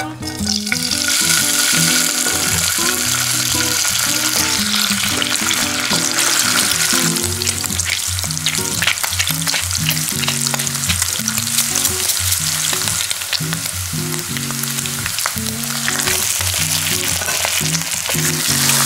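Bacon pieces sizzling as they fry in hot corn oil in a nonstick pan, the sizzle starting as they drop in and full of sharp pops and crackles of spitting fat.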